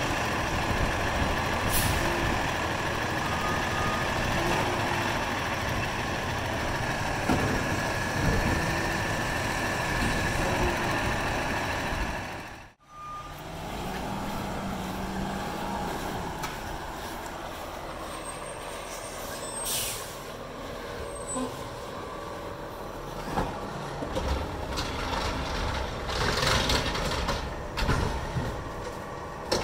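Automated side-loading garbage truck with a McNeilus body running, its diesel engine and hydraulic lifting arm working as curbside carts are picked up and emptied. A short hiss of the air brakes comes past the middle.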